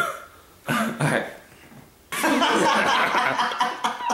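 Teenage boys laughing: two short bursts of chuckling in the first second or so, then loud, continuous laughter from about two seconds in.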